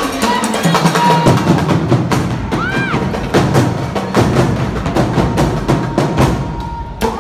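Marching drumline playing a fast, steady cadence of drum and stick strikes.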